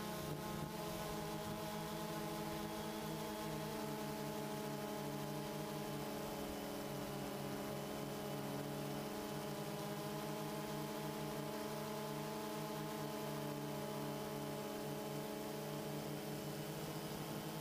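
DJI Phantom 2 quadcopter's motors and propellers buzzing steadily in flight, as heard from its onboard GoPro, the pitch wavering slightly as the motors adjust speed.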